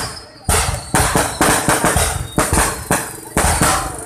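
Aerial fireworks going off in rapid succession: sharp bangs about two a second, each trailing off quickly before the next.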